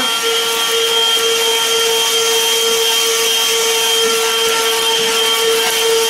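Black+Decker Pivot TPV1820RAC cordless handheld vacuum running steadily with its brush attachment on, a rush of air under a high, steady whistling tone that holds one pitch.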